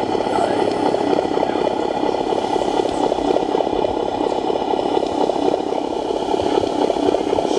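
An RC model truck's sound module playing a diesel engine idling through a small speaker: a steady, rapid, even chug with little deep bass.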